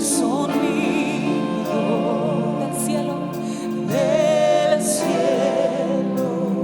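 Worship band music: a singer's voice holding long notes with vibrato over sustained chords.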